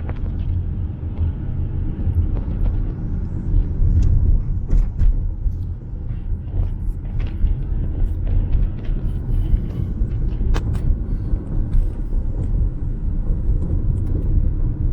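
A car driving, heard from inside: a steady low rumble of road and engine noise, with a few faint ticks scattered through it.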